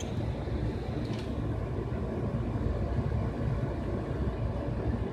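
Steady low rumbling noise, with one faint click about a second in.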